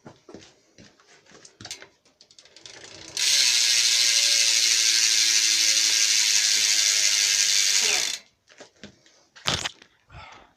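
BMX rear hub's freewheel pawls ratcheting as the wheel is spun. A few scattered clicks come first, then for about five seconds the clicks run so fast they blur into one loud, steady buzz, which drops slightly in pitch and cuts off as the wheel stops. It is reasonably loud, loud enough to hear while riding.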